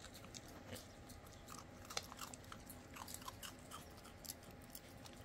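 A raccoon chewing and crunching a cookie: faint, irregular crunches.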